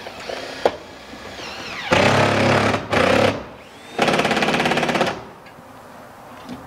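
Cordless impact driver running in three bursts, driving screws into steel roofing panels: one about two seconds in, a short one just after, and a longer one of about a second near the middle, each with a fast hammering rattle.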